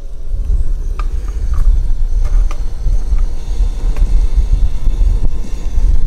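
Wind buffeting the microphone, an uneven low rumble, with a few faint ticks and pops from bacon strips starting to fry on a Skottle griddle.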